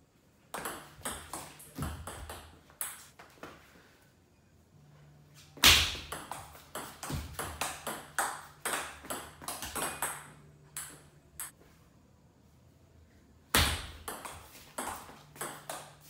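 Table tennis rallies: the ball clicking off the paddles and bouncing on the table in quick back-and-forth strokes, in three rallies with short pauses between them. A faint low hum lies underneath.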